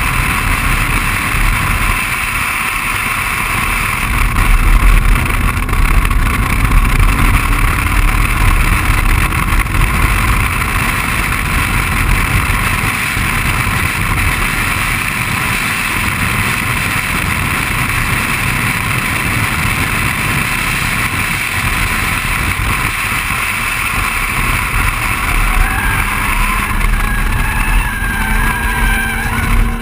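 BMW 135i on track at speed: heavy wind noise over the outside-mounted camera with the turbocharged straight-six engine running underneath, its pitch climbing as the car accelerates near the start and again near the end.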